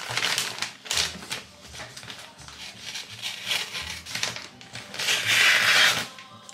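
Scissors snipping with rustling handling noise in irregular bursts, and a louder rustle about five seconds in.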